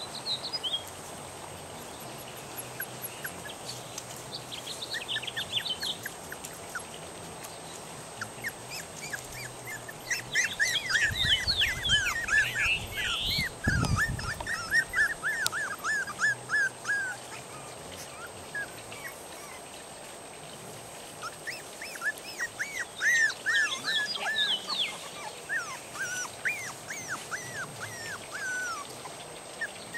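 Norrbottenspets puppies whining and squealing in many short, high-pitched cries, thickest about ten seconds in and again past twenty seconds; they have been woken and want their mother to feed them. A low rumble is heard briefly around the middle.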